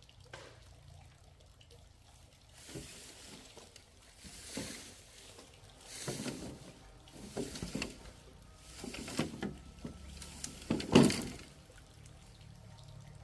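Liquid pouring in a series of short bursts, about one every one to two seconds, the loudest near the end.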